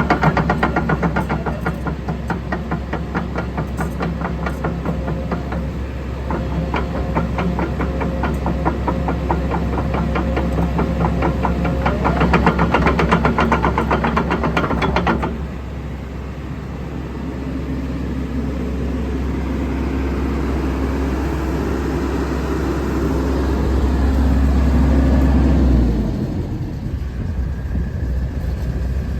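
A JCB JS130 tracked excavator's diesel engine running steadily. For the first half a fast, even rattle rides over it, which stops suddenly about halfway through, leaving a smoother, quieter running sound. A low steady hum cuts off a few seconds before the end.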